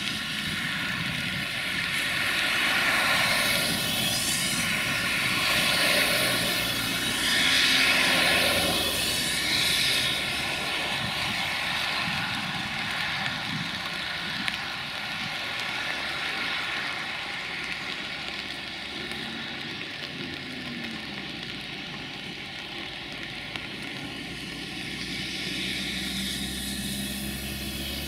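Sulzer diesel engine of a CFR 060-DA (LDE2100) diesel-electric locomotive running under power as it approaches, with a high whistling whine from its turbochargers over the engine drone. The sound is louder in the first ten seconds, then eases.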